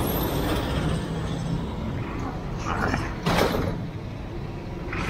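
Steady rumble of street traffic with a vehicle engine running close by. About three seconds in comes a short metallic rattling and scraping as a bicycle and pedicab are wheeled off the pavement.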